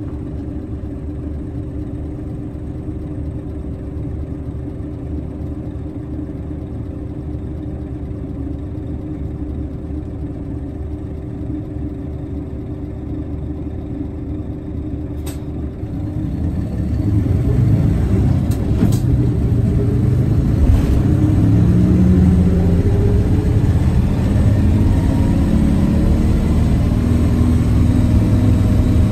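Nissan Diesel Space Runner city bus's diesel engine idling steadily for about half the time. After a click, the bus pulls away and the engine note rises as it accelerates, climbing in steps.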